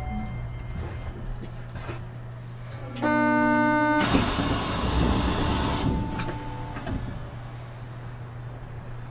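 Osaka Metro 200 series New Tram car stopped at a station, under a steady low hum. About three seconds in, a one-second electronic door tone sounds; then the doors slide open with a loud rush of noise that lasts about two seconds and fades.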